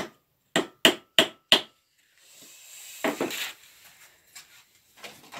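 Wooden mallet knocking a small glued wooden dowel into a hole in a birdhouse front: four quick sharp wood-on-wood knocks, about three a second, then a clatter about three seconds in as the mallet is set down on the wooden workbench, followed by faint handling rustle.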